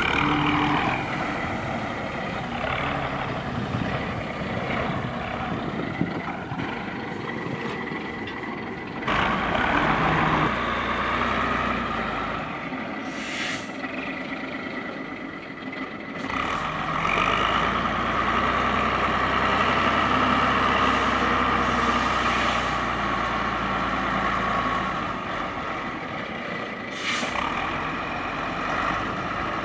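Stalowa Wola Ł-34 wheel loader's diesel engine working under load while stacking straw, with a steady whine. The engine rises in speed and loudness about nine seconds in and again about sixteen seconds in. Two brief hisses come partway through and near the end.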